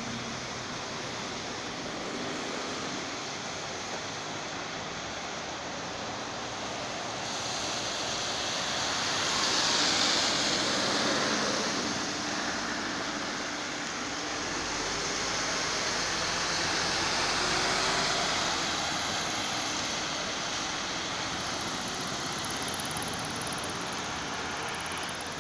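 City street traffic: steady road noise from passing vehicles. It swells as a DVB city bus passes close by, loudest about ten seconds in, and swells again with a low rumble a few seconds later.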